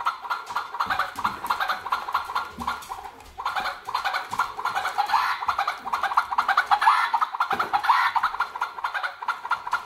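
Battery-powered plush toy turkey calling through its small speaker: a rapid, unbroken string of electronic turkey calls. It weakens for about two seconds after the first second, then goes on louder and steadily.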